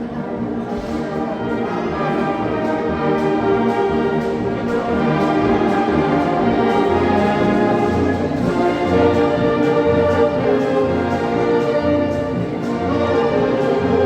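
Oaxacan Sierra Mixe philharmonic wind band playing: brass and woodwinds holding full chords over a steady low bass beat, with light percussion keeping time.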